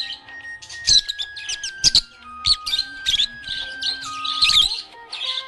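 Budgerigar chirping and warbling in quick, high twittering bursts over background music: a simple melody of held notes, stepping up and down about once a second.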